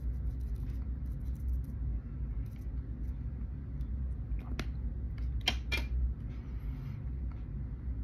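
Makeup being handled: a few sharp clicks and taps, with two close together a little past the middle, over a low steady rumble.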